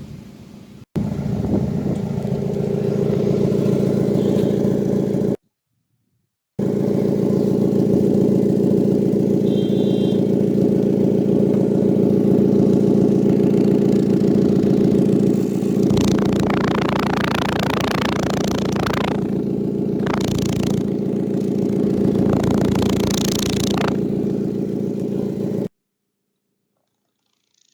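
Hyundai i20 exhaust droning steadily with the engine running, with stretches of louder hiss about two-thirds of the way through. It is an abnormal silencer noise, traced to holes worn in the muffler and the silencer pipe.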